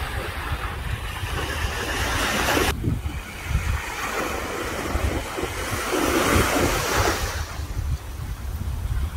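Small sea waves washing in, the hiss of the wash swelling twice: once, cutting off sharply under three seconds in, and again from about four to seven seconds in. Wind rumbles on the microphone throughout.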